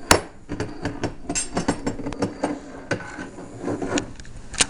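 Irregular knocks, clicks and clatter of objects being handled on a hard tabletop, with a sharper knock near the end.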